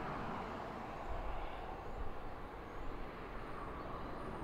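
Jet airliner engines making a steady noise, with wind buffeting the microphone.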